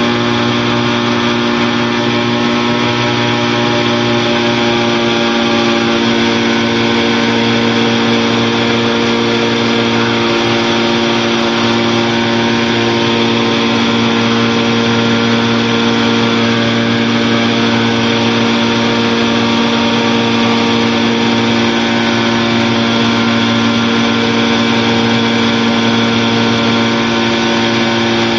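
Challenger II light aircraft's engine and propeller running steadily at constant power in flight, one unchanging pitch throughout.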